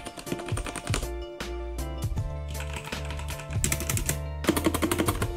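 Typing on a mechanical keyboard with tactile brown switches: many quick keystrokes that become a dense fast run in the second half. Background music plays under it.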